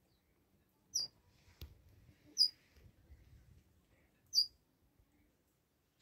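Small aviary parrot giving three short, high chirps, a second or two apart, with a single light knock between the first two.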